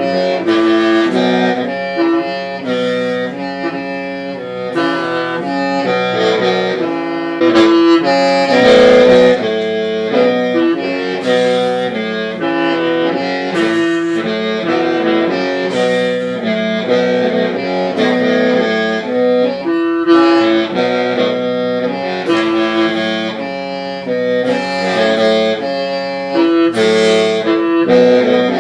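Hmong qeej (lusheng), a bamboo free-reed mouth organ, playing a melody of several notes sounding together that change every fraction of a second over a steady low drone.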